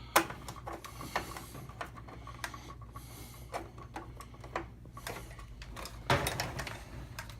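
Scattered clicks and knocks of hard plastic parts as a rotary wash-temperature switch is handled and pushed into a washer's control panel, with a sharp click just after the start and a cluster of knocks about six seconds in.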